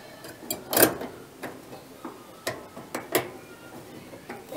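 A series of sharp clicks and small knocks as wire connectors are handled and pushed onto the terminals of a part on a dryer's housing. The strongest click comes about a second in.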